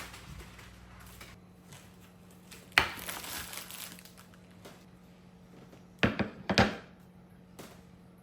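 Household handling sounds: one sharp knock about three seconds in and a quick cluster of knocks around six seconds, over a faint steady hum.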